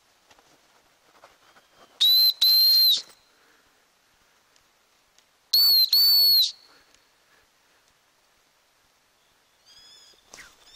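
Two loud, high whistle blasts about three and a half seconds apart, each a quick double note; a few fainter short high notes follow near the end.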